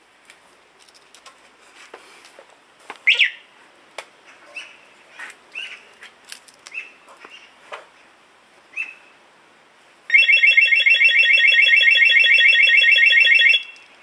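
Cheap Chinese 12 V motorcycle/car alarm siren (Master Racing, rated 125 dB) going off about ten seconds in: a loud, rapidly pulsing electronic tone for about three and a half seconds that cuts off suddenly. Before it, cloth rustles with a few short chirps.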